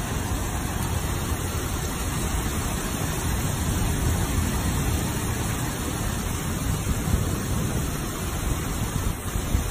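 Heavy downpour: a steady rush of rain falling on a flooded street, with a strong low rumble under it.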